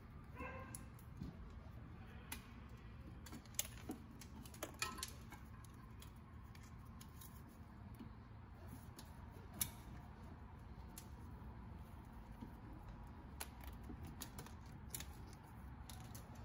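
Faint clicks and rustles from handling a plastic wiring-harness connector and wires by hand, over a low steady background hum. The sharpest clicks come a few seconds in and again near ten seconds.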